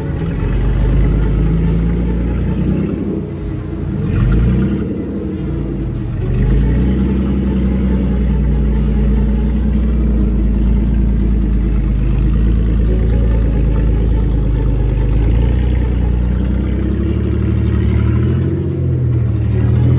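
Rock crawler buggy's engine running under load at low speed, revving up and easing off as it crawls up steep rock ledges.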